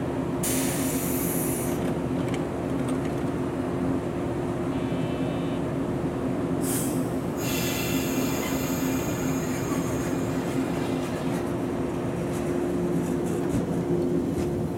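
A yellow JR suburban electric train standing at the platform with a steady hum from its onboard equipment, broken by two short hisses of compressed air, then starting to pull away near the end.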